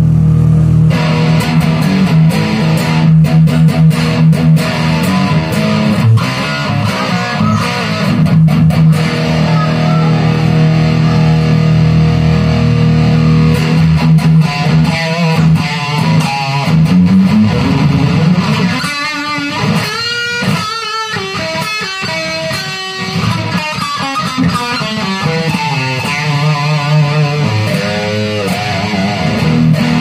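Electric guitar played through a Marshall Jackhammer JH-1 overdrive/distortion pedal, switched on. Held low notes give way through the middle to bending, wavering lead notes, and held low notes return near the end.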